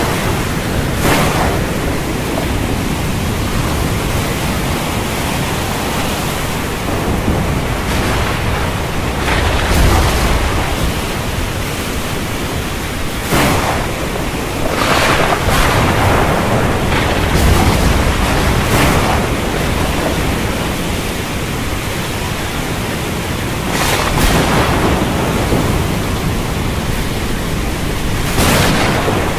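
Heavy rainstorm hiss with thunder: several sharp cracks and deep rolling rumbles over the steady rain.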